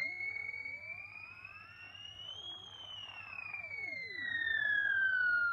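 Synthesized electronic sound effect: a whistling tone that starts suddenly, glides slowly up to a peak about halfway through, then falls steadily, with fainter tones sweeping up and down beneath it.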